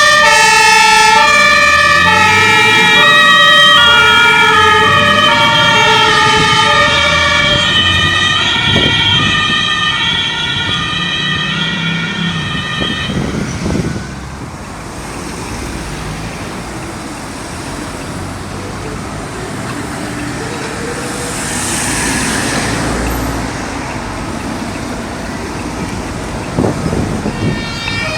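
German two-tone emergency vehicle siren (Martinshorn) alternating between a high and a low pitch, cutting off about halfway through. After that there is road traffic noise, with one vehicle passing by about two-thirds of the way in.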